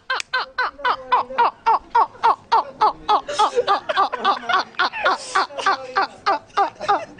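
Men laughing hard: a long, unbroken run of rapid 'ha-ha' pulses, about four a second, each falling in pitch.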